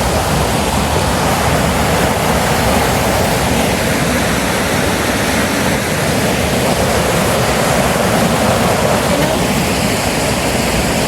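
Rushing water of a woodland beck tumbling over a waterfall: a loud, steady rush with no breaks.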